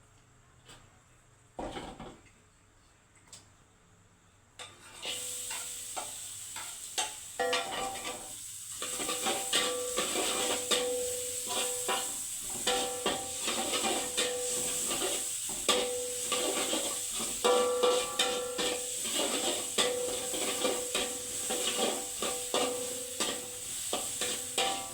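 Fried rice sizzling in a hot pan while a spatula stirs and scrapes it in quick, repeated strokes, with a steady ringing tone that keeps coming back between strokes. The sizzle starts about five seconds in, after a few light knocks.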